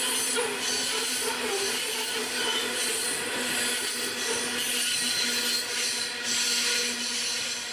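Coal hopper wagons of a long freight train rolling past: a steady rush of steel wheels on rail, with a constant low hum running through it.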